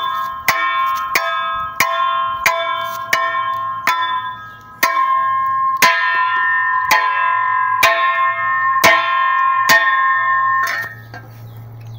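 Music: ringing bell-like tones over a steady beat of sharp strikes, about three every two seconds. It stops shortly before the end, leaving a low hum.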